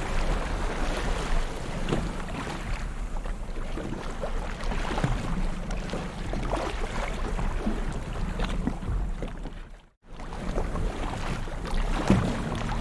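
Ocean waves washing and splashing on a shore: a steady rush of water with many small splashes. The sound drops out for a moment about ten seconds in, then resumes.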